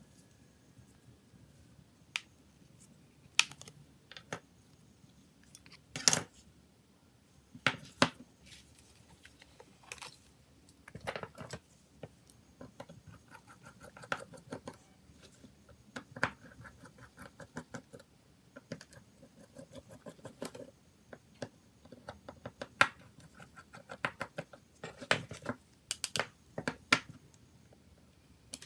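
Scattered sharp clicks, taps and scrapes of small plastic and metal parts as a mobile phone is handled and taken apart with hand tools, with a few short runs of rapid ticking.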